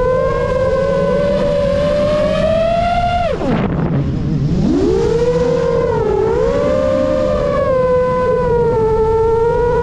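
A 7-inch FPV quadcopter's four XING2 2809 1250KV brushless motors spinning 7.5-inch props, a loud steady whine. About three seconds in the pitch drops sharply as the throttle is cut for a roll, then spools back up and settles.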